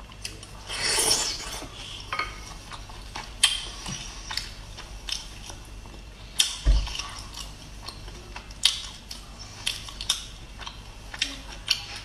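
Eating snails from the shell: a wet suck of meat drawn from a shell about a second in, then scattered sharp clicks of hard snail shells knocking against a plate and each other, with one dull knock near the middle.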